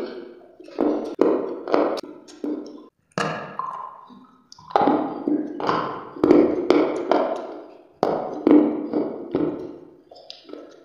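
Close-miked crunching as a person bites and chews a hard, dry grey block: a quick irregular series of crisp crunches, each dying away quickly, a couple a second, with a short lull about three to four seconds in.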